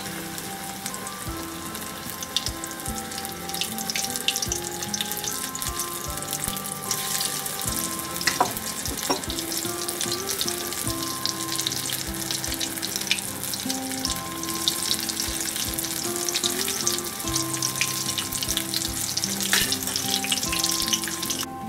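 Batter-coated apple slices (apple bajji) deep-frying in hot oil, a steady dense crackling sizzle. Soft background music plays underneath.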